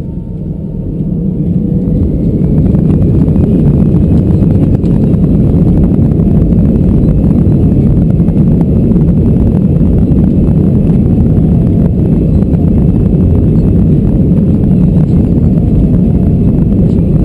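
An Airbus A319's twin CFM56 jet engines spooling up to takeoff thrust, heard inside the cabin over the wing: a faint rising whine as the sound grows over the first two or three seconds, then loud and steady as the aircraft accelerates down the runway, with the landing gear rumbling and knocking over the runway surface.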